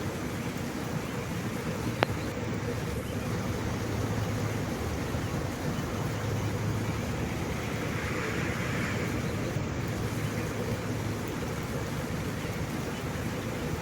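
Rain and traffic on a waterlogged road: a steady low vehicle engine hum under a hiss of rain and moving water, with a sharp tap about two seconds in and a brief swell of splashing hiss a little past the middle.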